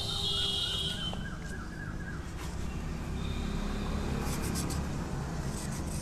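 Brake shoes of a Hero Splendor BS6 rear drum brake being scuffed with abrasive paper in quick back-and-forth strokes, roughening linings that had gone hard and were causing the brake noise. The rasping strokes start about four seconds in.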